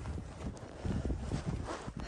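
Footsteps crunching on loose volcanic rock, an uneven series of steps, with wind rumbling on the microphone.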